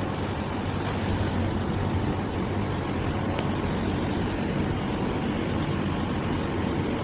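Air conditioner running during R410A gas charging: a steady hum from the compressor under its fan noise, holding an even level throughout.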